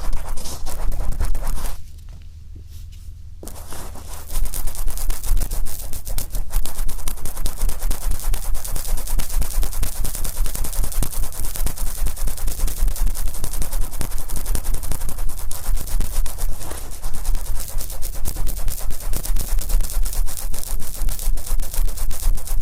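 Wet, oiled cotton swab rubbed over the outer ear of a binaural microphone, close up: a rapid crackling, scraping rub with a low handling rumble underneath. It drops away briefly about two seconds in, then goes on.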